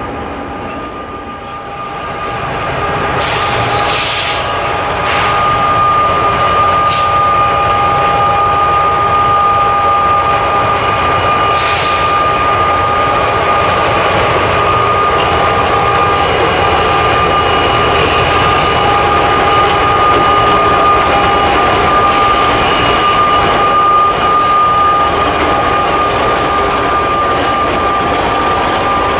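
Diesel freight train led by an EMD SD60 and a GE C44-9W locomotive approaching and passing close by, with engine rumble and a steady high-pitched wheel squeal. The sound grows louder over the first few seconds as the train nears, and a few sharp clicks come through early on.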